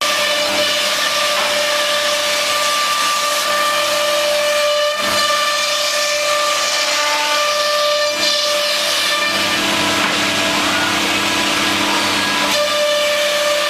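C.R. Onsrud CNC machining center running, with a steady high-pitched spindle whine of several fixed tones over a loud rushing hiss of cutting.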